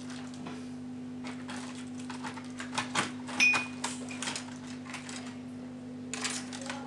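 Crackling and clicking of small plastic packaging being handled and opened, with a louder sharp tap and a brief ring about three and a half seconds in, over a steady low hum.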